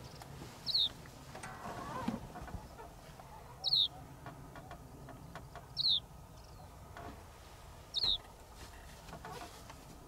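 Mediterranean short-toed lark calling: a short, high, downslurred note given four times, about every two seconds.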